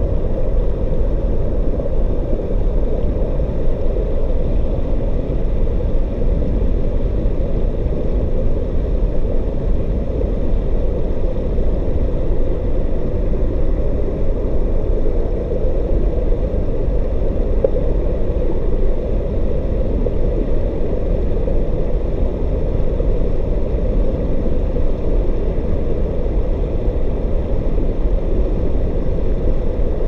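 Steady underwater roar of a waterfall's turbulent plunge pool, heard through a GoPro Hero4 Black's waterproof housing: a deep, muffled, unchanging rumble.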